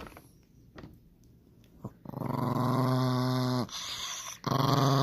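Chihuahua growling: two long, steady growls, the first starting about two seconds in and the second after a short break.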